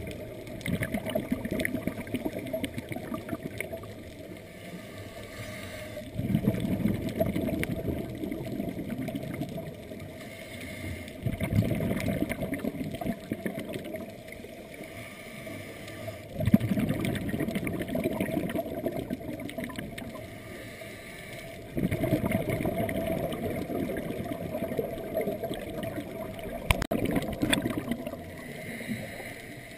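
Scuba diver's regulator breathing, heard underwater: muffled gurgling rushes of exhaled bubbles about five times, each lasting a few seconds, with quieter stretches between breaths.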